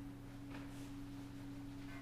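Steady low machine hum with two faint light clicks, one about half a second in and one near the end.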